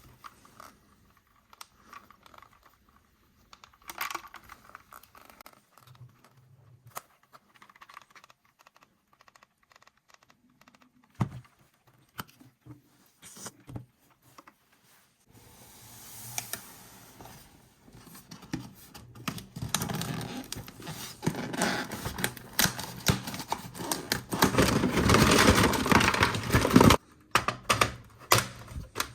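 Hands handling plastic toy parts and packaging at close range. Scattered light clicks and taps come first; from about halfway there is a denser, louder stretch of crackling and rattling, which stops abruptly near the end before a few more clicks.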